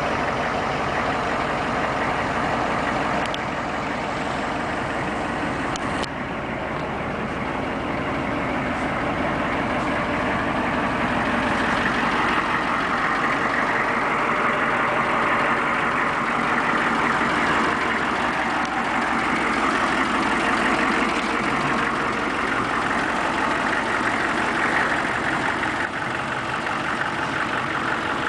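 A 1997 Chevrolet Silverado 3500HD's 6.5-litre turbo-diesel V8 idling steadily.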